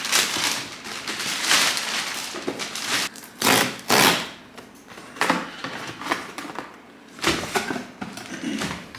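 Plastic courier mailer bag crinkling and tearing as it is pulled open, then packing tape ripped off a cardboard box in two loud rips about three and a half seconds in, followed by scattered scrapes and knocks of cardboard flaps being opened.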